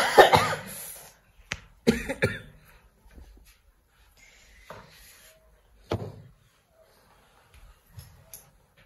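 A person coughing a few short, sharp times, one cough about two seconds in coming as a double, another about six seconds in, with a light click in between.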